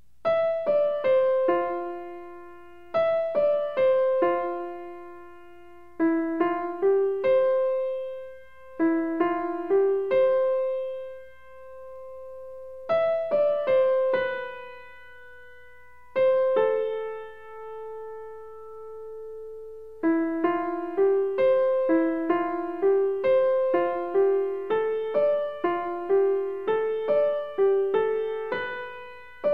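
Background piano music: a gentle melody of single struck notes in short phrases, twice pausing on a long held note around the middle.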